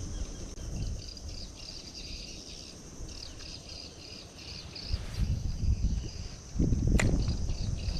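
Insects, crickets or similar, chirping steadily in a high pulsing trill, over a low rumble that grows louder in the second half. A single sharp click sounds about seven seconds in.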